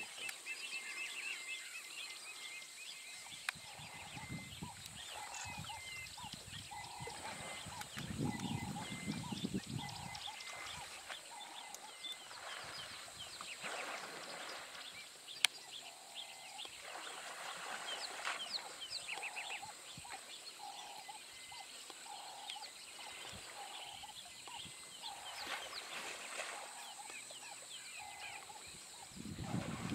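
Waterhole ambience of many birds calling and chirping. One bird gives a short low hoot over and over, about once a second, with a steady high insect drone beneath. African elephants splash and wade in the water, loudest about eight seconds in and again at the end.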